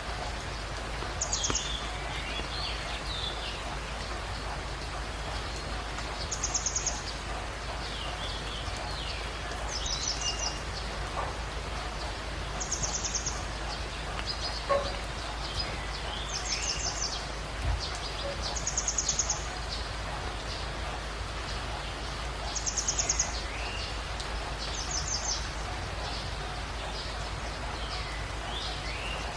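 Birds in a jungle dawn chorus: one bird repeats a short, high, rapid trill every few seconds, and other birds chirp lower between its trills, all over a steady background hiss.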